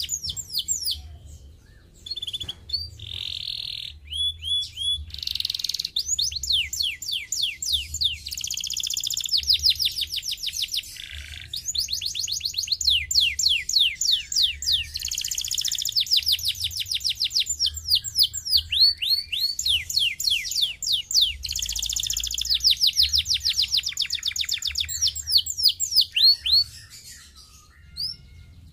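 Domestic canary singing a long song of fast trills: rapid runs of repeated down-slurred notes, with short breaks between phrases.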